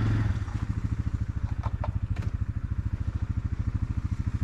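An engine idling with a steady, rapid low pulse.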